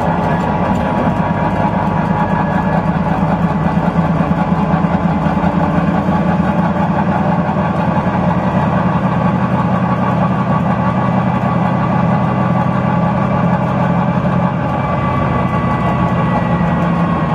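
Volvo B9TL double-decker bus's 9.4-litre six-cylinder diesel engine running steadily as the bus drives along, heard from inside the bus with road noise.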